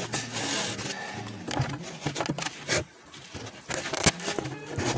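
A screwdriver scraping and clicking against the metal parts inside an opened single-needle sewing machine head during disassembly. The scraping is irregular, with a few sharp knocks spread through it.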